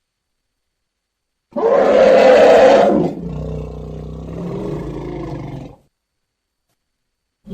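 Baby elephant calling: a loud roaring call lasting about a second and a half, which drops into a quieter, lower rumbling call for about two and a half seconds. It starts and stops abruptly, with silence on either side.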